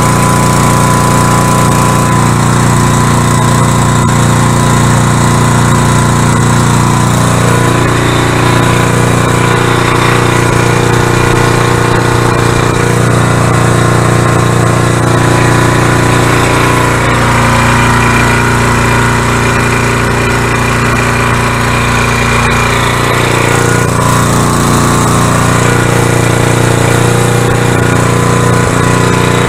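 Winco 3600 RPM industrial generator's Briggs & Stratton engine running loud and steady at its governed speed, its tone shifting a few times.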